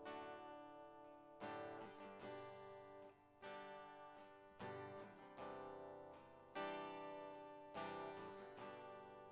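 Quiet acoustic guitar music: slow strummed chords, roughly one a second, each left to ring out.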